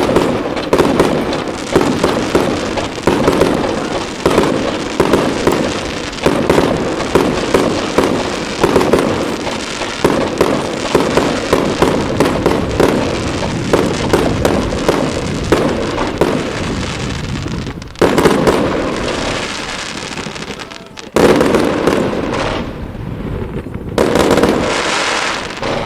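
Fireworks display: a dense, continuous barrage of loud bangs and crackling shells, with three fresh loud volleys in the last third.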